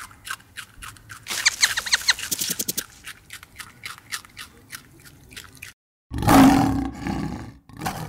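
A rabbit chewing, a run of crisp crunching clicks several times a second, then after a brief pause a lion's loud rough roar lasting about a second and a half.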